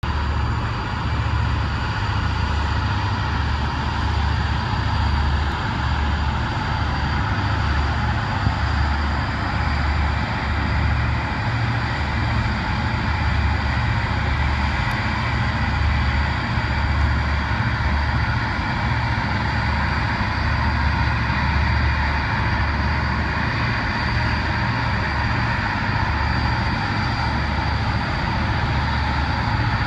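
Towboat's diesel engines running under load as it pushes a barge tow upriver: a steady, loud low throb with a rushing haze above it.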